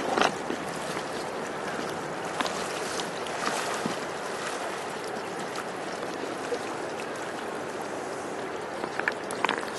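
Steady rush of a shallow river running over stones, with a few short splashes of people wading and hauling ropes in the water, the loudest just after the start and two near the end.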